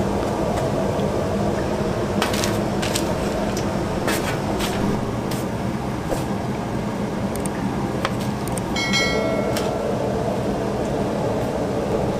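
Commercial kitchen ambience: a steady hum like a ventilation hood or fan, with a few sharp clicks of utensils and a short metallic ring about nine seconds in.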